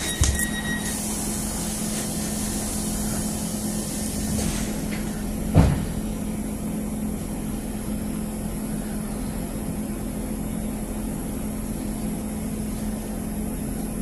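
Class 150 diesel multiple unit's underfloor diesel engine idling steadily, heard from inside the carriage while the train stands at a platform. A high steady tone cuts off just under a second in, and a single thump comes about five and a half seconds in.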